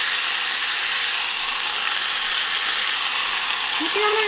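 Marinated skirt steak sizzling steadily as it sears in a hot cast-iron grill pan, pressed flat to take grill marks.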